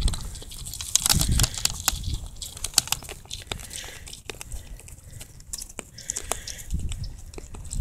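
Sika deer eating dried shelled corn from an open hand, the kernels crunching and clicking between their teeth in a quick, irregular run of sharp cracks, with a low rumble swelling about a second in.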